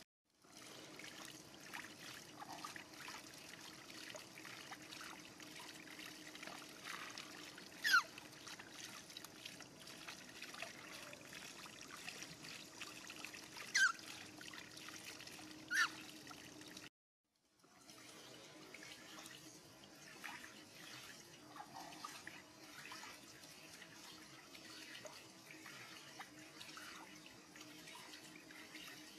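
Water from a hose running into a metal wash basin and spilling over the rim onto the ground in a steady trickle. Three short sharp sounds stand out in the middle, and the sound cuts out completely for a moment about two-thirds of the way through.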